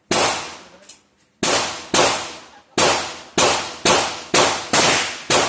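A string of about nine handgun shots with a ringing echo after each, the first two spaced out, the rest coming about every half second.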